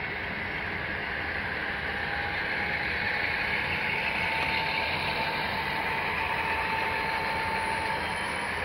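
Model freight train rolling past: the steady clatter and rumble of small metal wheels on track, with a thin steady whine from the model diesel locomotives' motors and gears that comes in about four seconds in as the locomotives pass and fades near the end.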